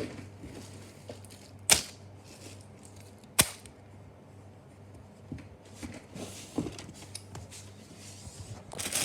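Three sharp clicks about one and a half seconds apart, then softer knocks and rustling of things being handled, over a low steady hum.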